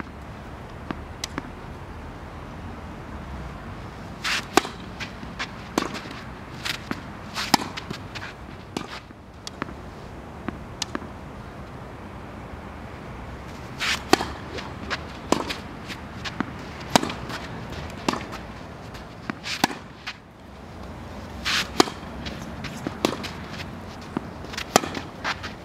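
Tennis racket strings striking a ball and the ball bouncing on the court: a string of sharp pops at irregular intervals, some in quick pairs, over a steady outdoor background.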